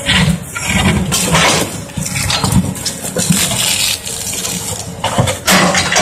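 Caterpillar 320D hydraulic excavator's diesel engine working under load as the bucket digs into and pries up broken concrete slabs, with repeated scraping and knocking of concrete and rubble against the bucket.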